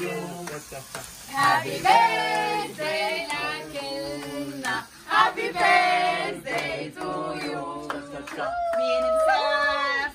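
A group of friends singing a song together, men's and women's voices mixed, unaccompanied.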